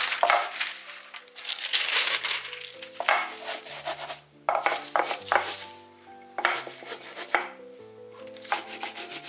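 Wooden rolling pin pushed back and forth over parchment paper and a sheet of sesame chewy candy, the paper rustling and crinkling in repeated strokes a second or two apart. Soft background music with slow stepping notes plays underneath.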